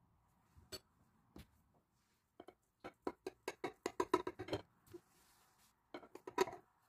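A kitchen knife cutting a soft syrup-soaked cake in a glass pie dish, the blade clicking and tapping against the glass: a quick run of clicks from about two to four and a half seconds in, and another short cluster near the end.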